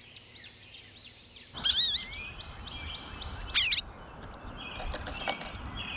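Small songbirds chirping: a run of short repeated chirps, then after about a second and a half a steady outdoor hiss cuts in, with warbling bird calls and a series of quick repeated notes over it.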